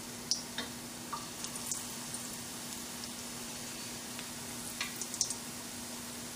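Batter-coated potato balls (batata vada) deep-frying in hot oil in a small karahi: a steady sizzle with scattered pops and crackles as more battered balls go into the oil.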